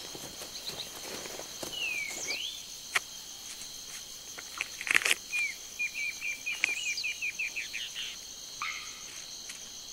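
Rainforest ambience: a steady high insect drone, with bird calls over it. There is one falling-then-rising whistle about two seconds in and a quick run of short chirps in the middle, plus a few sharp clicks.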